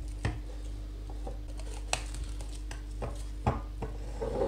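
A few light knocks of glass beakers being handled and set down on a countertop, with rustles of plastic cling film, over a steady low hum.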